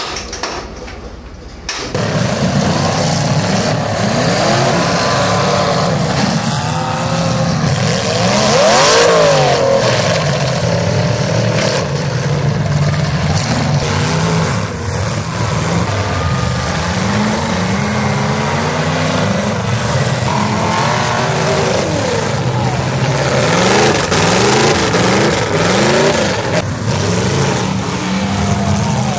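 Several demolition derby cars' engines revving hard, their pitches rising and falling over one another, starting about two seconds in, with a few sharp bangs of cars hitting.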